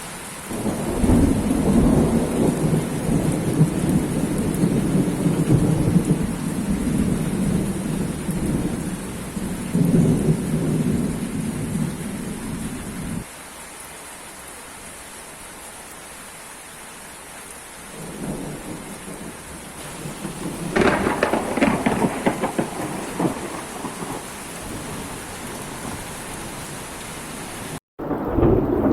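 Heavy rain falling steadily through a thunderstorm, with two long rolls of thunder. The first rumbles from about half a second in and stops abruptly near the middle. The second builds a few seconds later, with a sharper crackle at its peak.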